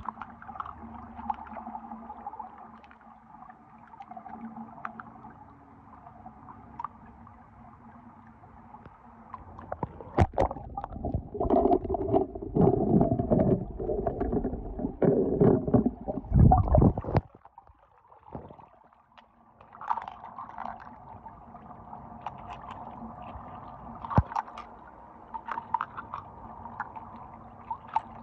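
Water sloshing and gurgling as a hand moves a small die-cast toy car through a shallow pool. This loud stretch runs for several seconds in the middle and stops suddenly. Before and after it come quieter scattered clicks of toy cars being handled and set down.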